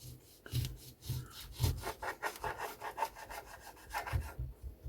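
Quick, rhythmic scraping strokes on an orange, about four a second, with a few soft knocks against the surface underneath.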